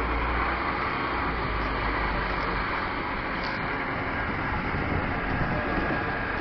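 An engine running steadily, mixed with wind rumbling on the microphone.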